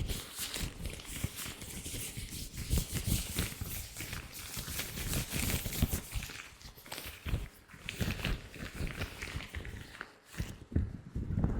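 Latex gloves rubbed and crinkled close to the microphone: a dense, irregular crackling with soft low thuds, pausing briefly near the end.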